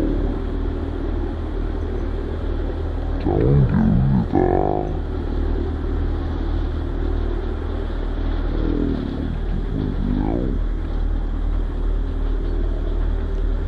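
An engine running at a steady low idle, a continuous drone. Voices call out twice over it, about three seconds in and again near ten seconds.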